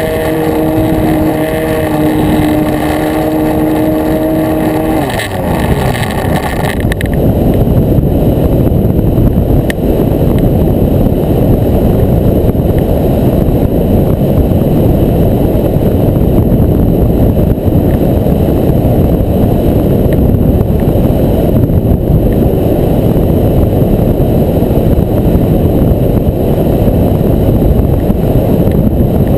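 Nitro RC plane's glow engine running at a steady high pitch, heard from a camera on the wing; about five seconds in it throttles back and its pitch falls away. From then on a loud, steady wind rush over the wing-mounted camera fills the sound.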